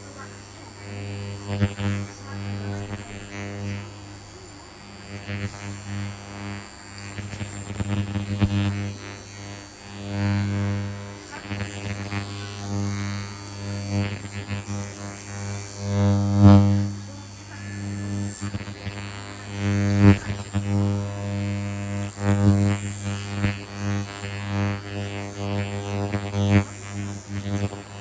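Ultrasonic skin scrubber buzzing steadily with a low drone, swelling louder and fading every second or two as its metal blade is pressed and glided along the face.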